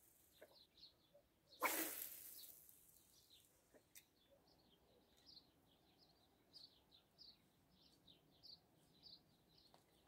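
Small birds chirping and twittering faintly, many short high notes in quick runs. About two seconds in, a brief louder rush of noise that fades away over a second or so.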